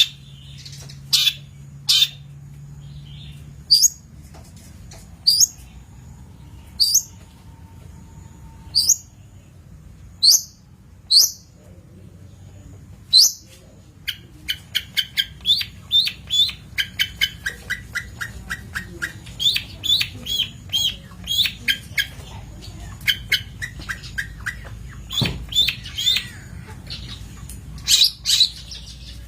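Long-tailed shrike (cendet) singing: sharp, loud single calls spaced about a second apart, then from about halfway a fast chattering run of short notes mixed with more sharp calls.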